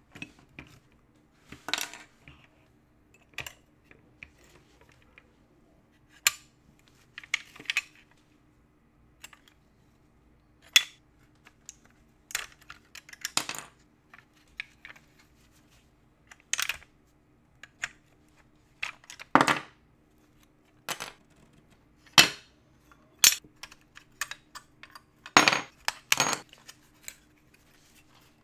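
Metal and plastic parts of a diecast model car clicking, tapping and scraping as they are pried and pulled apart by hand with a small tool: irregular sharp clicks and knocks every second or two over a faint steady hum.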